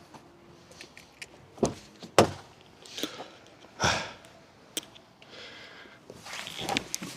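A few dull knocks and thumps with scattered small clicks, the loudest three about one and a half, two and four seconds in.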